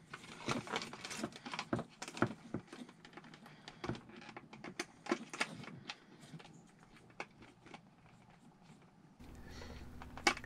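Hands handling the wires, connectors and casing of a ceiling light fixture: scattered small clicks and rustles, thinning out after about six seconds. A faint steady hum comes in near the end.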